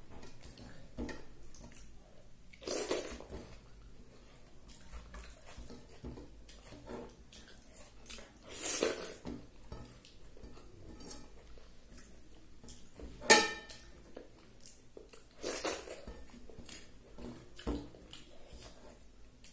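Eating by hand from a plate of rice and dal: soft squelching as fingers mix the rice on the plate, chewing, and scattered small clicks, with a few louder sharp sounds and one brief ringing clink about two-thirds of the way through.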